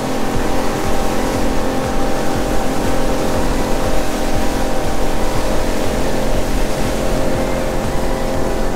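Motorboat engine running steadily at cruising speed, with water rushing and spraying along the hull.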